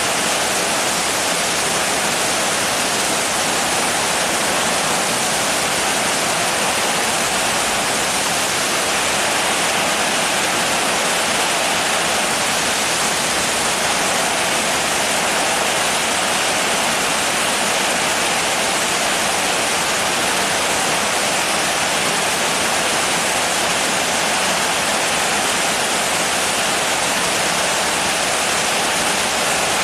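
Heavy rain falling, a steady even hiss with no separate drops or thunder standing out.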